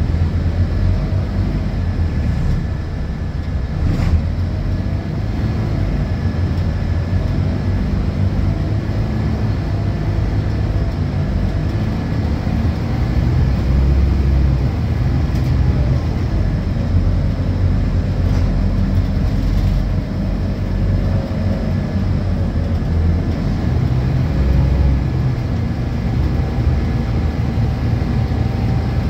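Interior of a Scania K230UB city bus on the move: the rear-mounted diesel engine running under load, its pitch rising and falling as the bus speeds up and slows, with a steady faint high whine over it.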